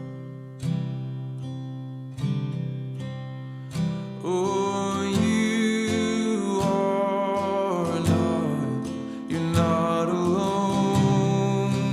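Background music: acoustic guitar strummed and plucked in an instrumental passage between sung lines.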